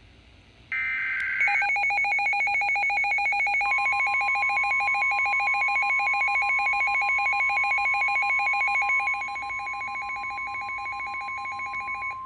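The last EAS/SAME digital header burst, a short buzzy data screech about a second in, then a rapid warbling electronic alarm. About three seconds later the steady NOAA Weather Radio warning alarm tone joins it, marking the start of a new warning broadcast. The warbling stops near the end while the steady tone carries on.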